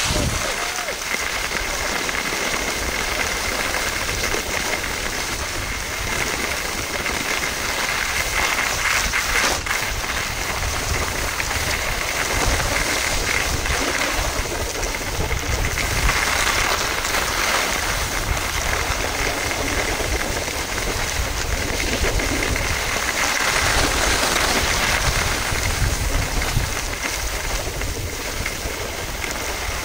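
Skis sliding and scraping over groomed snow, mixed with wind rushing and buffeting over an action camera's microphone as the skier moves downhill, making a continuous hiss with a low, fluttering rumble.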